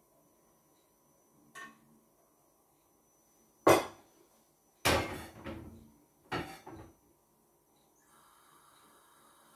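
A frying pan and glass being handled on a gas hob: a light click, then a sharp loud knock and two more clanks with a short ring as metal meets the hob's metal grate. About eight seconds in a steady faint hiss starts as the gas burner under the pan is lit.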